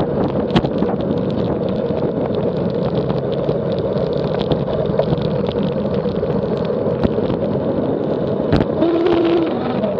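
Steady wind and road rumble from moving at speed downhill, with many scattered ticks and knocks. A faint steady hum comes in near the end, the start of the strange noise and vibration heard on the descent.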